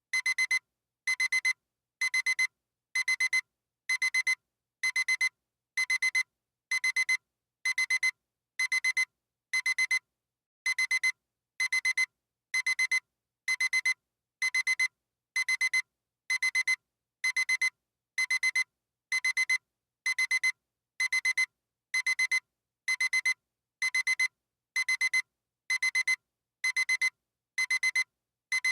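Classic digital alarm clock beeping: short clusters of rapid high-pitched beeps, about one cluster a second, repeating evenly without change.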